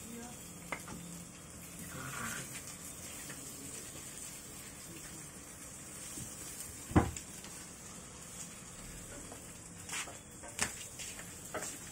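Pork chops sizzling in hot oil in a frying pan, a steady hiss. A sharp knock comes about seven seconds in, and a few lighter clicks near the end.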